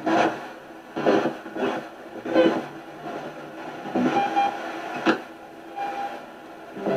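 Spirit box sweeping through radio stations: choppy bursts of static and clipped radio fragments every second or so, a few with brief steady tones.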